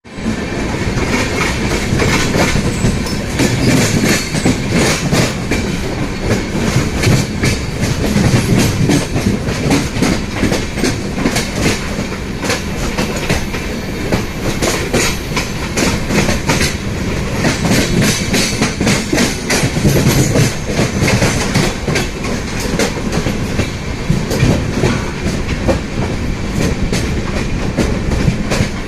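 Wheels of the Grand Trunk Express passenger train running over the rails at speed: a loud, continuous rumble with a dense, irregular run of clicking clickety-clack from the rail joints.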